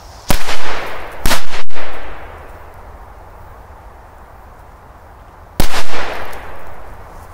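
Three firecracker explosions. Two sharp bangs come about a second apart, then a third about four seconds later, each followed by an echo that dies away over about a second.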